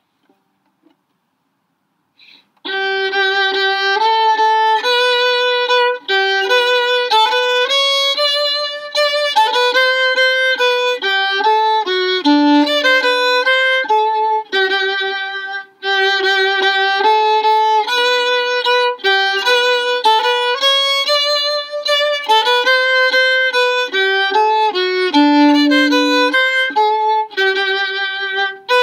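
Solo violin playing a melody of single notes, starting after about two and a half seconds of silence; the tune starts over about halfway through.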